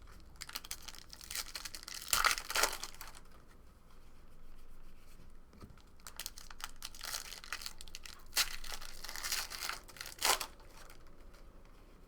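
Trading card pack wrappers being torn open and crinkled, in two spells of rustling with a few sharper tearing sounds.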